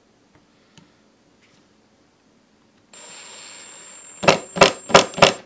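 Ryobi P1870 18V impact driver driving an 8-inch timber screw into wood. The motor starts about three seconds in with a steady whine. It then gives four short, loud bursts of hammering as the screw bites and the driver's impact mechanism kicks in.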